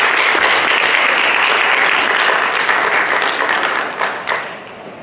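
Audience applauding, dense and steady, then dying away near the end with a few last scattered claps.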